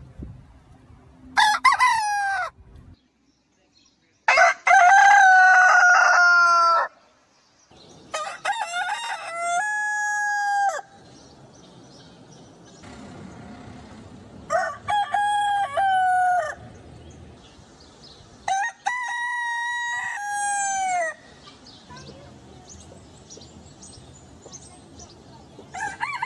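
Roosters crowing: five separate cock-a-doodle-doo calls a few seconds apart, each lasting one to two and a half seconds and ending in a falling tail.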